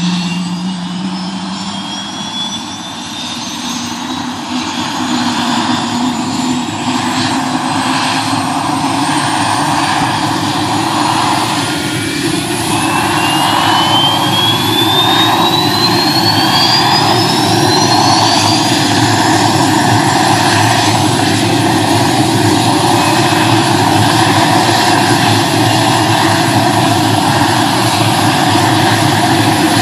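Sheriff's light turbine helicopter on the ground, its engine whine rising steadily in pitch and growing louder as the turbine and rotor spool up. For the last several seconds it settles into an even, loud run.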